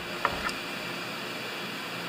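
Two light clicks of small metal parts as a carburetor is fitted into a chainsaw's housing by hand, then a steady hiss of background noise.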